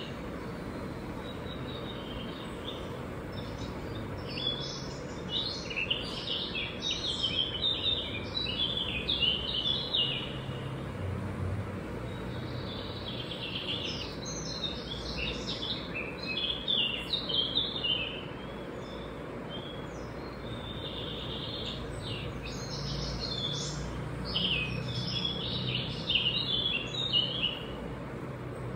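A songbird singing in three long bouts of quick, jumbled chirping notes, roughly every nine seconds, over a steady low background noise.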